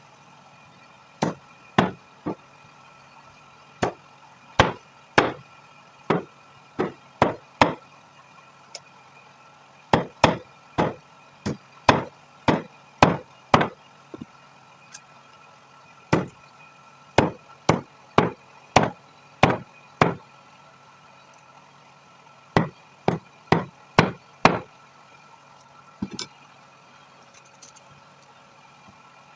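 Chicken being chopped with a heavy blade: a long run of sharp blows in quick bursts of two to five, ending about 26 seconds in, over a steady background hum.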